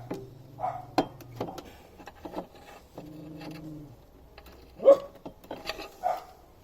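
Scattered knocks and clicks of mower parts being handled, the loudest about five seconds in, with a steady low hum in two stretches.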